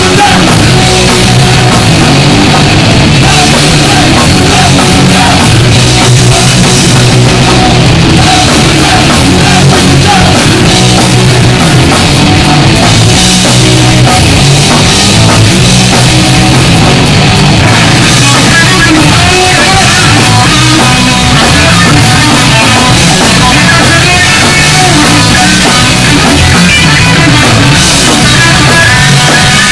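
Punk rock band playing live and loud: distorted electric guitar, bass guitar and a drum kit.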